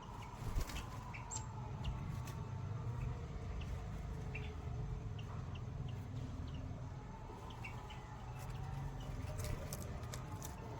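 Birds giving short, high chirps, scattered irregularly over a steady low rumble, with a few sharp clicks.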